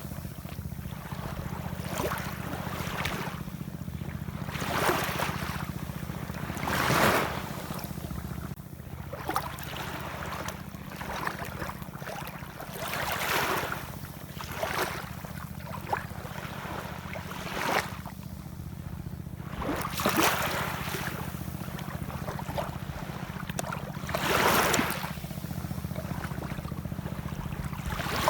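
Ocean waves washing in, one swell of hiss every second or two, some louder than others. A steady low rumble runs underneath.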